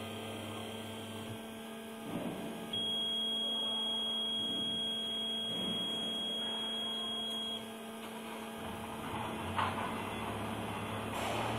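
Hot wire foam cutting machine running mid-cut: a steady electrical hum from its drives, joined about three seconds in by a high, steady whine that cuts off abruptly a few seconds later.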